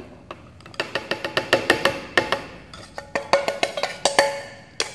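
A metal spoon tapping and scraping around the inside of a stainless steel bowl to knock out the last of the flour: a quick run of ringing clinks, several a second, ending with one more tap near the end.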